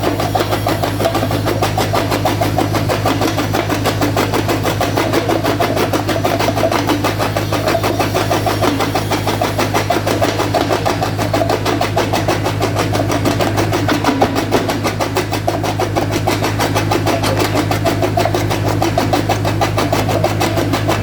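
Jaw crusher machine and its drive engine running steadily, with a constant low hum and a fast, even pulsing.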